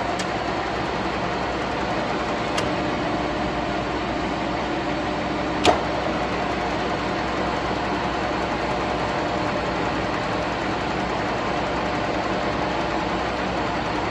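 Stanko 6A82III milling machine running with a steady hum and whine as its table drive traverses. There is a click just after the start as a control-pendant button is pressed, another at about two and a half seconds, and a louder sharp clack near six seconds.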